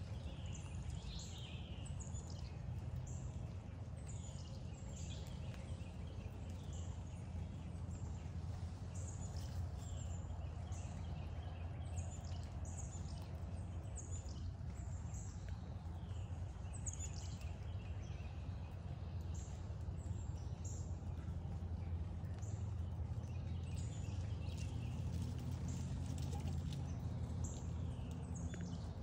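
Wild birds chirping: many short, high, downward-sliding notes repeated all through, over a steady low rumble.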